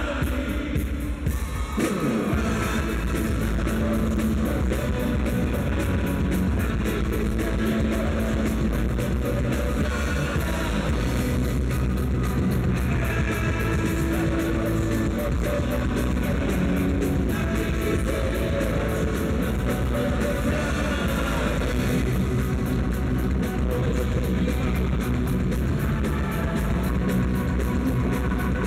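Live rock band playing a song: singing over electric guitar, bass guitar and keyboards. The full band comes in about two seconds in.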